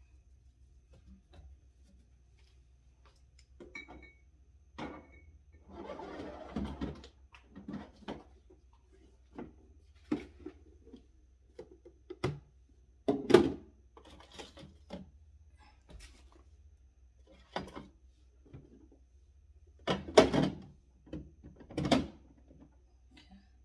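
Scattered knocks and clunks of food containers and items being set down and moved around inside a fridge, with a drawer sliding. A brief rustle comes about six seconds in, and the loudest clunks come about thirteen seconds in and again around twenty to twenty-two seconds.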